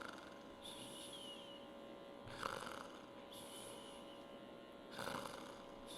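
A man snoring on purpose while awake: a rasping snore about every two and a half seconds, with a softer hissing breath between, over a faint steady hum.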